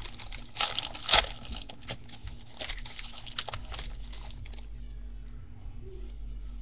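Topps Fire football trading cards being flipped through by hand: quick rustles and snaps of card stock sliding over card, with two sharper snaps about a second in. The handling stops at about four and a half seconds.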